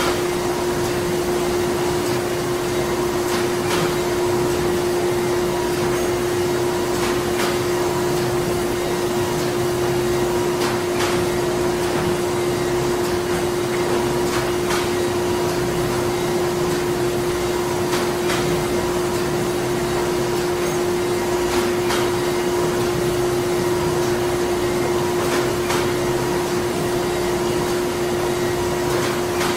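Printing-plant machinery running steadily: a constant machine hum with a held tone over broad mechanical noise, and a faint click repeating about every three and a half seconds.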